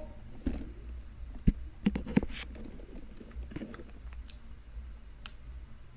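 Irregular taps, clicks and rubbing from a small squishy toy being handled close to the microphone, over a low steady hum. The loudest knocks come about a second and a half in and again about two seconds in.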